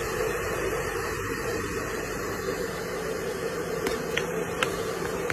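Hand-held hair dryer blowing steadily: a constant rush of air with an even motor hum.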